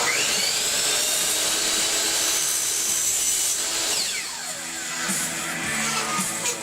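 Electric woodworking power tool starting up with a rising whine, running steadily while cutting wood for about four seconds, then winding down in pitch.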